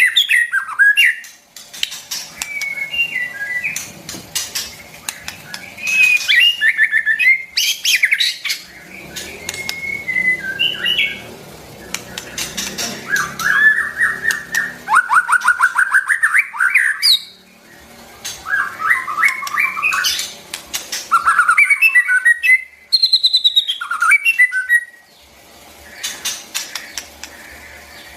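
White-rumped shama singing: a varied series of whistled phrases and quick runs of repeated notes, mixed with sharp clicks.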